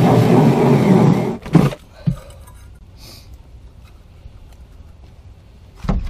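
Cordless drill spinning a 4-inch hole saw through the plastic wall of a sump basin: a loud, steady cutting noise that stops about a second and a half in. A couple of knocks follow, and a short thump comes near the end.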